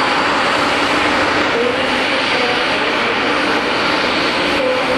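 The four GEnx-2B jet engines of a Boeing 747-8 freighter running steadily at taxi power as the aircraft taxis: a constant, loud rushing hiss with a faint wavering tone underneath.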